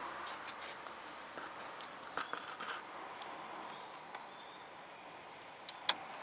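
Abnormal rattling and clicking from a Toyota Esquire while driving, over a steady hiss of road noise: a cluster of short rattles about two seconds in and one sharp click near the end. The uploader ties the noise to the shock absorbers.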